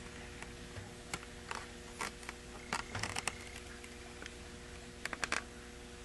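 Scattered light clicks and taps from a clear polycarbonate RC car body being handled while tape stripes on it are cut with a hobby knife, in clusters about a second to three seconds in and again near the end, over a faint steady hum.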